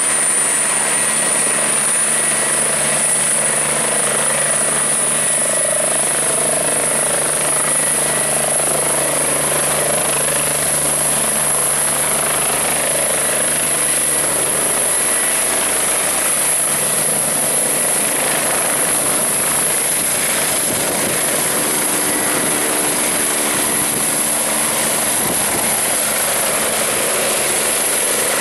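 Airbus H145 (Eurocopter EC145) helicopter's twin turbine engines and rotor running at take-off power, with a high turbine whine that rises a little in pitch over the first several seconds. It lifts off the helipad about halfway through and climbs away, the low engine drone thinning out as it leaves.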